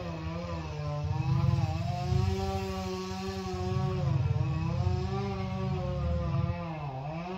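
A small engine runs steadily in the background. Its pitch sags and recovers a few times, most deeply near the end.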